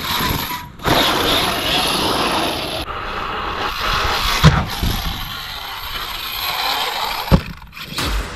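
Arrma Kraton 8S RC monster truck with an 800 kV brushless motor running hard off-road: a dense rush of motor, drivetrain and tyre noise in short clips that cut off abruptly, with two sharp thumps, one about halfway through and one near the end.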